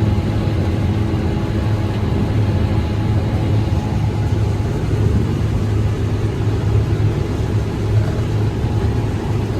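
Combine harvester running steadily while harvesting corn, a low, even engine drone with no change in speed.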